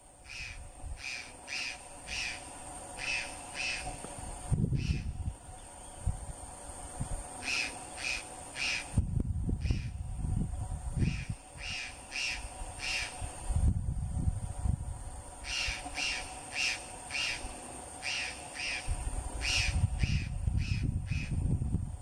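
White-throated magpie-jay calling: short, harsh repeated notes in bouts of about two or three a second, with brief pauses between bouts.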